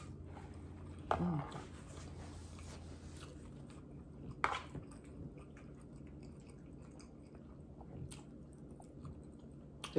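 A person chewing a mouthful of ramen noodles, with a short hum of the voice about a second in. A few sharp clicks come from a metal fork against the plastic container as she twirls more noodles.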